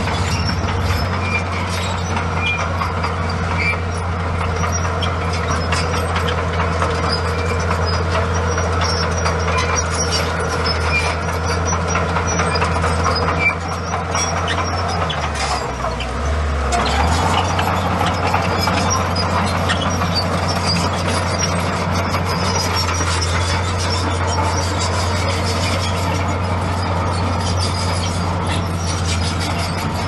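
Komatsu bulldozer's diesel engine running steadily under work, with clanking and a little squeal from the machine. About halfway through the engine note drops briefly, then picks back up.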